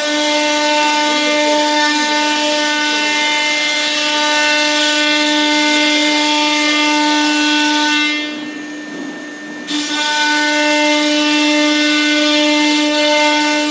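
ATC CNC router's spindle whining steadily as it carves a wooden board, a high, even whine over a loud cutting hiss. About eight seconds in the cutting noise drops away for about a second and a half, then comes back.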